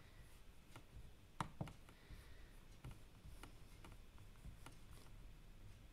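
Near silence with about seven faint, irregular clicks from a computer mouse as the page is scrolled.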